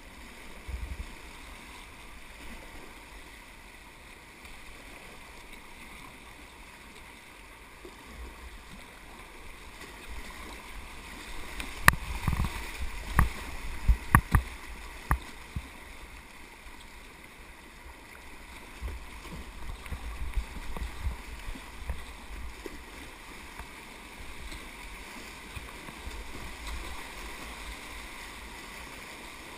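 Rushing whitewater of a river rapid. About halfway through, a quick series of sharp knocks and splashes as the kayak runs down a drop. The water churns louder for a few seconds after that.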